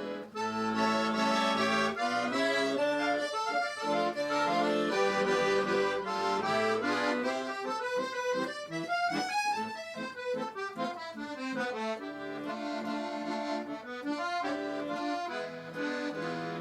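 Instrumental interlude between sung verses of a Russian song: a melody over sustained chords, with a fast run of notes that climbs and falls back in the middle.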